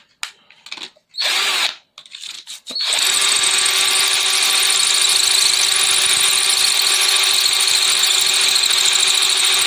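Black+Decker LD12SP 12 V cordless drill/driver drilling into a brick: a few short starts in the first seconds, then from about three seconds in the motor runs steadily at full speed under load.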